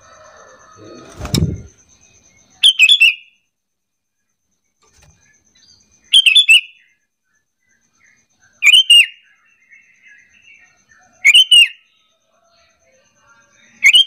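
Sooty-headed bulbul (kutilang) calling: five short, loud call phrases repeated every two and a half to three and a half seconds, with faint chirping in between. A dull thump comes about a second in.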